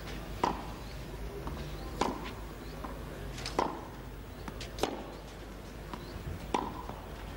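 Tennis ball struck back and forth by rackets in a baseline rally: five sharp hits, about one every one and a half seconds.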